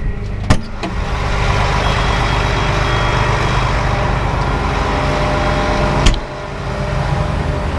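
Tractor engine running, heard from inside the cab, as the hydraulics are worked to open the grain wagon's door: a sharp click about half a second in, a louder rushing noise for about five seconds, then another click and the noise drops back to the engine.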